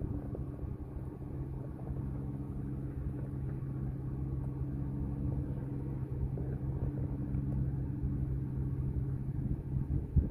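Ford F-350's 6.8-litre V10 gas engine idling steadily through its factory exhaust with the catalytic converters removed, giving a deep, even rumble.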